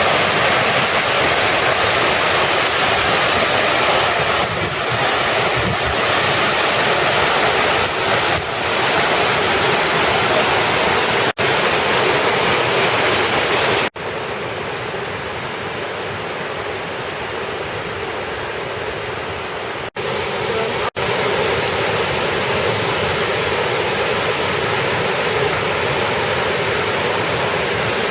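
Waterfalls and cascading water rushing steadily. The sound breaks off for an instant several times, and for a stretch in the middle it is quieter and duller before returning to full strength.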